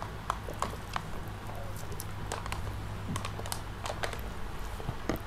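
Eating sounds at a table: scattered small clicks and taps as a plastic spoon works in a plastic cup and fingers pick at rice and chicken on a plastic plate, over a low steady hum.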